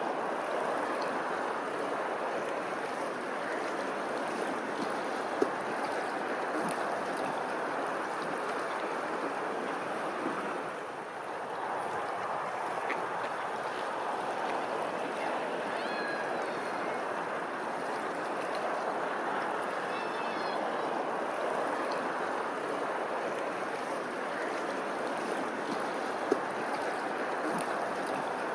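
Running water, a steady rushing flow. Faint high chirps come through a couple of times, and there are two sharp clicks.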